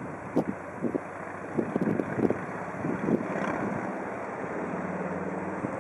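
Swedish Rc-class electric locomotive approaching with a train of timber wagons: a steady rumble mixed with irregular low thumps of wind on the microphone, and a low electric hum setting in about four seconds in.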